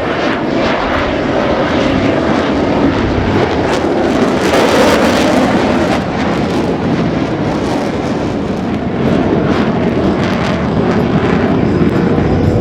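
Fighter jet engine noise, loud and continuous, swelling about four to five seconds in and again near the end.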